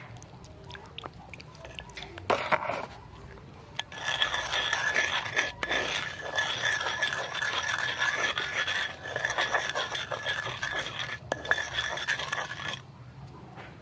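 Stone pestle grinding garlic and salt with a little water in a stone mortar: a few light knocks at first, then continuous rough scraping and rubbing from about four seconds in until shortly before the end. A steady high-pitched tone runs alongside the scraping while it lasts.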